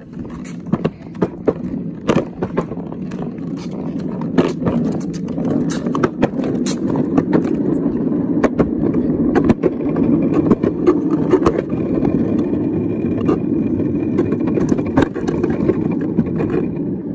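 Plastic wheels of a ride-on toy police car rolling over a concrete sidewalk: a steady rumble that builds in the first few seconds, broken by frequent clicks and knocks as the wheels cross joints and debris. A thin high tone joins in for the last few seconds.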